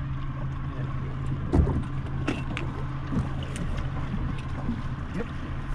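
Boat motor running steadily, a constant low hum under a hiss of wind and water, with a few light knocks.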